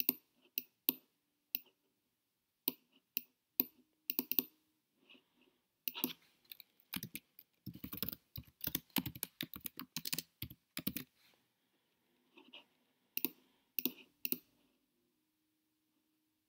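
Scattered single computer clicks, with a dense run of keyboard typing in the middle as a word is typed into a text field.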